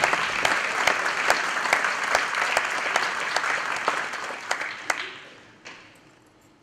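Audience applauding, the clapping thinning out over the last couple of seconds to a few scattered claps.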